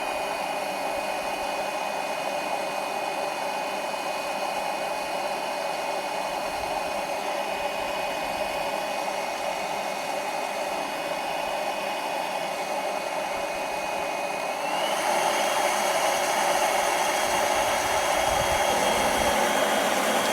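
Small blower running steadily with a high motor whine, forcing air into an RV fuel tank to pressurize it and purge air from the generator's fuel line. About 15 seconds in it is sped up: the whine rises in pitch and the blowing gets louder.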